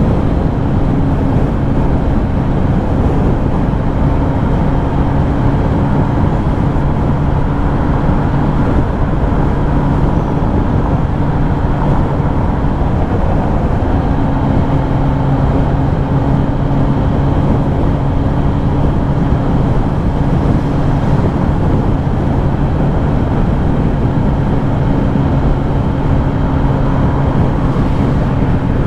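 Kawasaki Ninja ZX-10R's inline-four engine running at a steady cruise under heavy wind and road noise. The engine note holds one pitch, weakens for a few seconds around the middle, then comes back.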